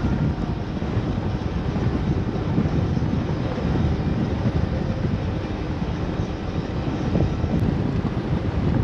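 Boat under way, its motor running steadily under heavy wind buffeting the camera microphone, a rough, continuous low rumble.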